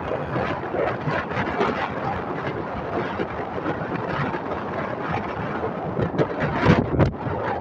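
Wind blowing across the microphone aboard a ship, a steady dense rush with a few stronger gusts about six to seven seconds in.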